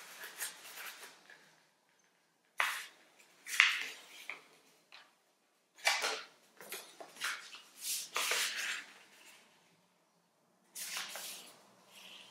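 A sheet of origami paper being folded and creased by hand on a tabletop: irregular bursts of paper rustling and crackling, broken by a couple of short quiet pauses between folds.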